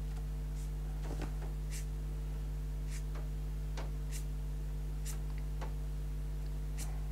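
Steady low electrical hum, with about a dozen faint, scattered clicks of a fingertip tapping and swiping a smartphone's glass touchscreen.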